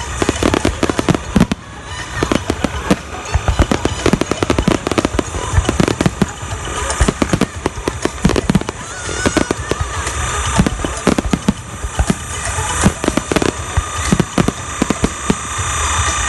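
Fireworks display: a rapid, continuous series of bangs and shell bursts, several a second.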